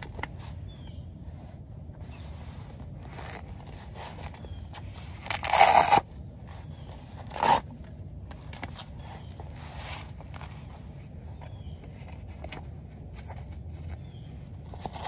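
A zipper being pulled: one long zip about five seconds in and a short second zip about two seconds later, over a steady low hum.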